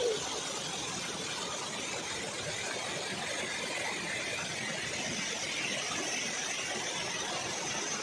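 Water rushing steadily over shallow rock cascades and rapids below a waterfall.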